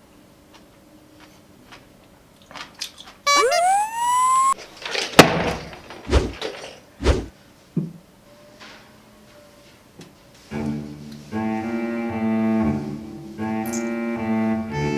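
A short rising tone, then several sharp thumps and knocks, followed by background music with held chords that starts about two-thirds of the way through.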